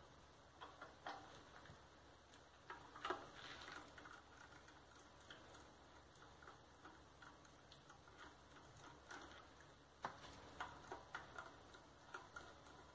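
Faint, scattered metal clicks and taps from a hand tool and loose parts being worked on the worm-gear housing of a Honda Civic electric power steering rack held in a vise, loudest about three seconds in and again around ten seconds.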